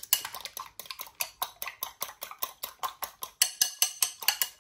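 A metal spoon whisking a raw egg in a ceramic bowl. It clinks rapidly and evenly against the sides of the bowl, about eight strikes a second.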